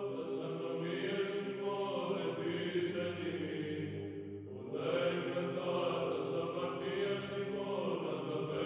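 Background music of slow sung chant, with voices holding long steady notes. A new phrase begins about halfway through.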